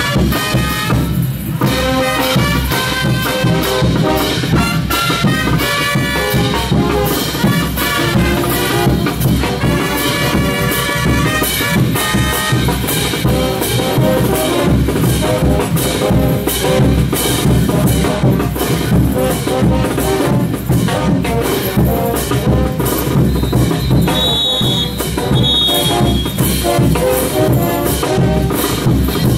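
Live brass band with drums playing dance music for a religious festival dance troupe: brass melody over a steady drum beat.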